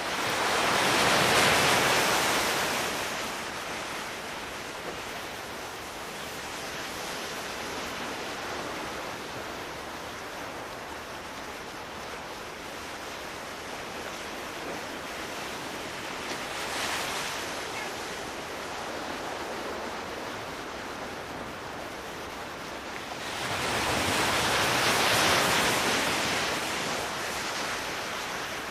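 Sea surf: a steady rush of waves, with a large wave swelling and washing in about a second in, a smaller one midway, and another large one near the end.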